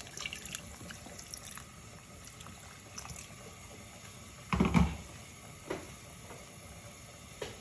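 Water poured from a jug into a beef and potato curry simmering in a clay pot, the curry bubbling and ticking. A heavy thump about four and a half seconds in is the loudest sound.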